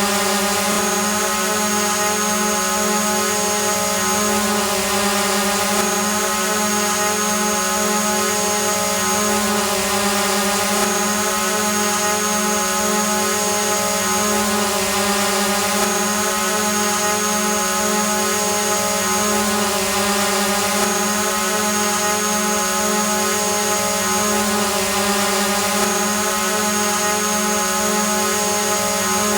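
Drone hovering, its propellers and motors giving a steady whine with a low hum underneath and a hiss of rushing air.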